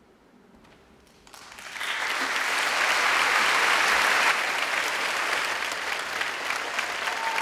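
Audience in a concert hall breaking into applause about a second in, quickly swelling to dense, steady clapping.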